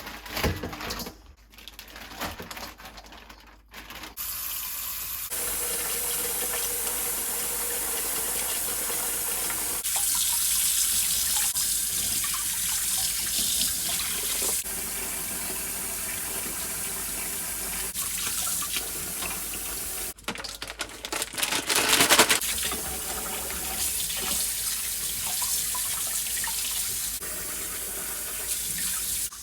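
Water running from a tap into a sink, starting about four seconds in and shifting several times as the flow changes, with a louder stretch a little after twenty seconds.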